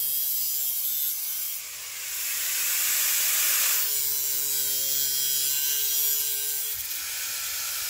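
Electric angle grinder cutting into rusted sheet-steel body panel, a steady grinding hiss over the motor's whine. It eases off briefly about two seconds in, then bites in louder.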